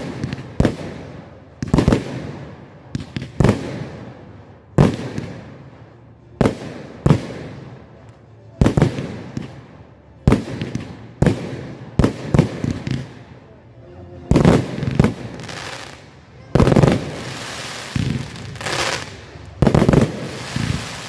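Fireworks display: aerial shells bursting one after another, about one sharp bang a second, each with an echoing tail. In the last several seconds the bangs come in quicker clusters with a hiss of crackle.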